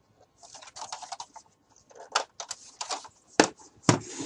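Plastic toy assault rifle being handled and turned on a wooden table: scattered light clicks and rustles of the hollow plastic body under the hands, with two sharper knocks near the end as it is set against the tabletop.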